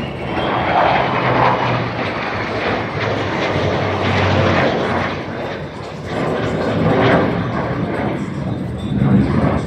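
Airplane engine noise, loud and swelling and easing several times, with a low steady drone underneath.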